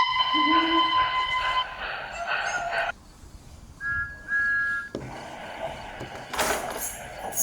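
Steam locomotive whistles: one held whistle that stops about a second and a half in, then two short toots about four seconds in. A short hiss follows a little later.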